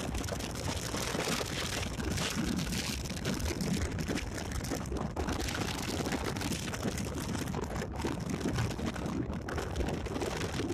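Steady rushing road and wind noise from a car driving along a street, with a crackly texture.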